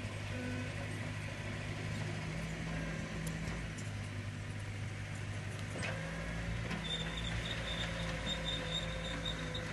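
Heavy diesel earthmoving machinery, a bulldozer and dump trucks, running steadily with a deep engine hum and occasional knocks. A high, broken squeal joins in about seven seconds in.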